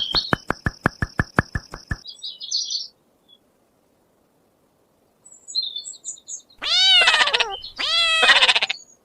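Rapid, even clicking under a steady high tone for about two seconds, then short high bird-like chirps, a pause, and more chirps. Near the end come two drawn-out animal calls whose pitch rises and falls.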